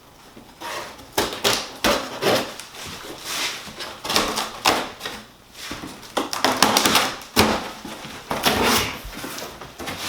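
Packing material being pulled out of a large cardboard box: irregular rustling and scraping with sharp knocks and clacks.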